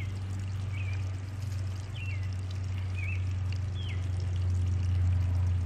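Water trickling and pouring steadily with a constant low hum underneath, and a few short bird chirps about one, two, three and four seconds in.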